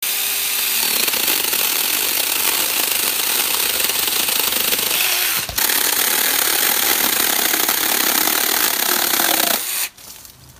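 Small 24-volt cordless mini chainsaw running steadily as it cuts through a tree branch, with a brief dip about halfway. The motor stops near the end.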